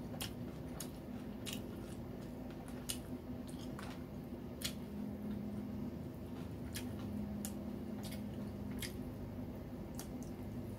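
Close chewing and biting of a fried egg roll: wet mouth sounds with scattered, irregular sharp clicks and crunches. A steady low hum sits underneath.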